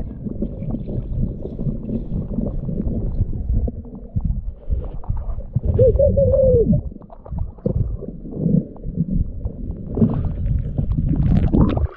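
Water churned by a gloved hand fanning river-bottom gravel, heard through an underwater camera: a dense, muffled rushing with many small knocks of shifting stones. A short tone rises and falls about six seconds in.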